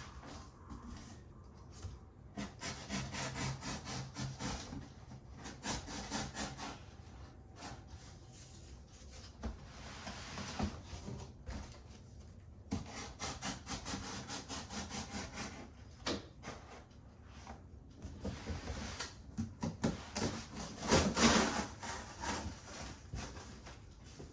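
Packaging being handled during unboxing: repeated rubbing and scraping in irregular runs, with scattered clicks. The loudest run comes about 21 seconds in.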